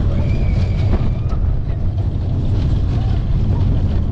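Slinky Dog Dash launched family roller coaster train running along its track: a loud, steady rumble, with wind buffeting the rider-worn camera's microphone.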